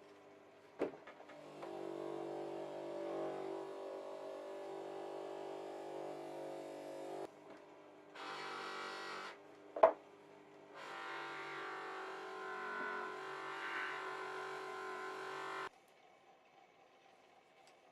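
A small electric power tool running at a steady speed in three spells, starting and stopping abruptly, the longest about six seconds. A single sharp knock comes in one of the pauses.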